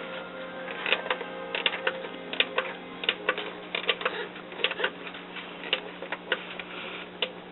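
Irregular sharp clicks, about two a second, over a steady low electrical hum.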